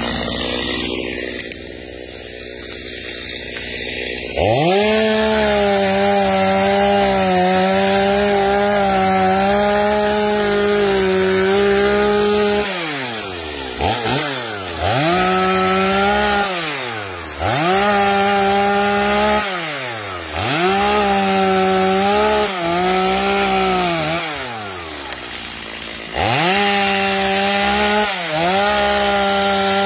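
Stihl MS250 two-stroke chainsaw running low at first, then about four seconds in revving to full throttle and cutting wood steadily for about eight seconds. After that come a series of shorter cuts, each ending as the throttle is released and the engine pitch falls away.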